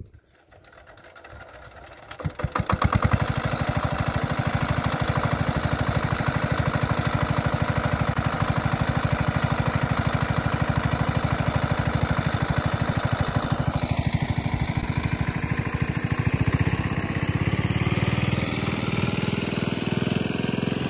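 Small engine of a portable water pump catching about two seconds in, then running steadily with a fast, even firing beat as it pumps water out of the pond to drain it.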